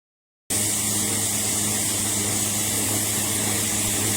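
Electric random orbital sander running steadily, a constant motor hum with a hiss of the spinning pad. It cuts in suddenly about half a second in.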